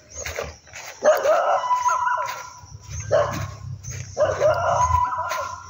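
A dog barking repeatedly, about once a second.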